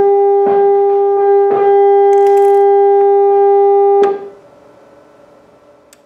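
A 400 Hz audio tone, recovered from the AM microwave signal coming out of a microwave resonance chamber, sounds from a speaker as a loud, steady buzzy hum with a few short clicks over it. It cuts off suddenly about four seconds in, leaving a faint hum.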